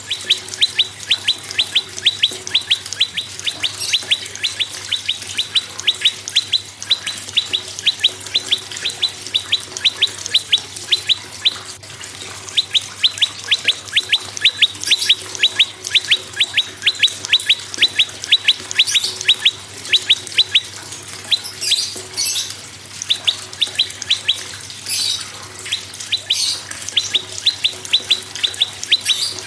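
Prenjak songbird singing a fast, even series of sharp chip notes, about five a second, broken by a few short pauses. Short, higher, scratchy calls cut in every few seconds.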